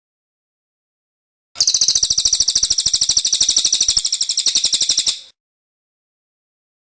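A small songbird's rapid chattering call: a fast string of sharp, high chirps, about a dozen a second, starting about one and a half seconds in and lasting nearly four seconds, then breaking off.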